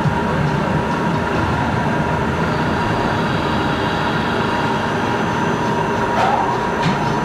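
FNC25 milling machine set up as a CNC lathe, running steadily with a constant whine over a dense mechanical rumble. A short rising squeal and a click come about six seconds in.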